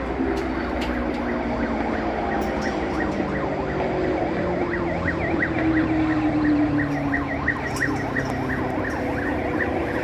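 Ambulance siren sounding a fast up-and-down yelp, growing clearer from about two seconds in as it comes closer, over steady road traffic.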